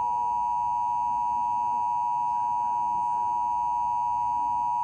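Emergency Alert System attention signal: two steady tones, about 853 and 960 Hz, sounding together as one loud, unbroken tone that announces a broadcast emergency alert, here a flash flood warning.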